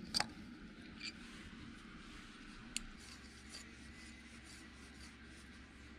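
Faint clicks and scraping of a Phillips screwdriver turning the screws that fix a metal dividing plate to a rotary table, with a few small clicks in the first three seconds over a low hum.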